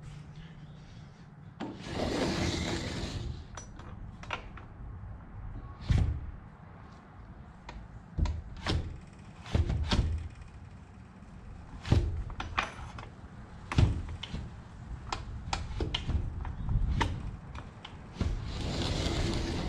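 A sliding glass patio door rolling along its track, slid shut about two seconds in and open again near the end, with a run of sharp knocks and clunks from the door and its frame in between. The door no longer closes all the way because the ground under it has shifted.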